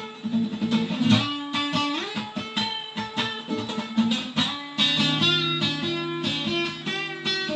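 Acoustic guitar playing an instrumental passage without singing: quick picked notes that ring on, with held low notes sounding underneath from about five seconds in.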